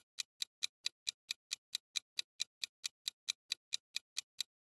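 Clock-tick sound effect used as a quiz countdown timer: quick, evenly spaced ticks, about four and a half a second, starting abruptly.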